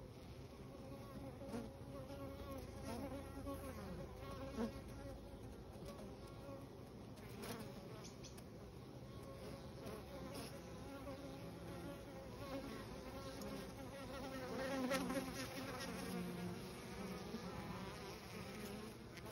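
Honeybees buzzing as they fly in and out of a hive entrance, their hum swelling and fading as single bees pass close by. The buzz is loudest about fifteen seconds in.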